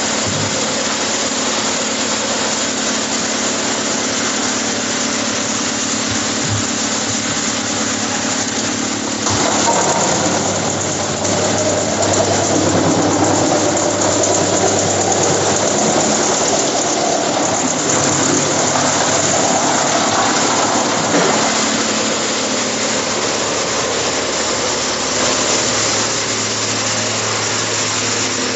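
Rotexmaster wood chipper running with a steady engine hum. About a third of the way in the sound turns louder and rougher for around twelve seconds as wood is fed through and chipped, then settles back to the steady run.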